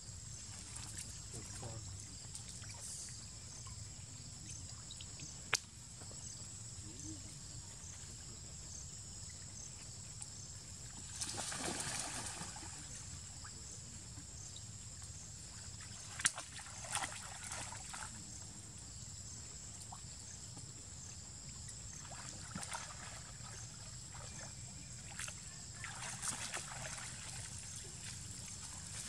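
Macaques wading and splashing in a shallow muddy puddle, heard as a few short bursts of sloshing water over a steady high-pitched background hum.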